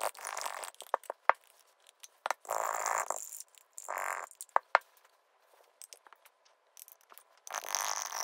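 Paintbrush stirring paint in glass jars, its handle scraping against the glass in short bouts, with a few sharp clicks of the brush or a jar knocking between them.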